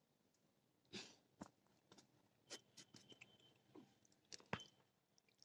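Near silence, broken by faint, scattered clicks and crackles of hands working among the potted plants and handling a plastic water bottle, about a dozen small ticks with no steady pouring.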